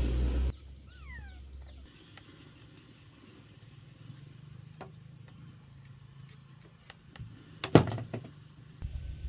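Quiet background with scattered light clicks and a few sharp knocks close together near the end; a low hum cuts off just after the start.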